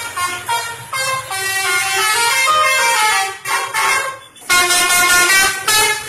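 Indonesian 'telolet' multi-tone bus horn playing a quick tune of shifting notes. The horn breaks off briefly about four seconds in, and another run of notes starts.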